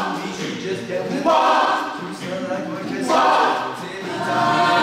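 A cappella vocal group singing sustained chords in close harmony, with no instruments. The chords swell louder about a second in and again about three seconds in.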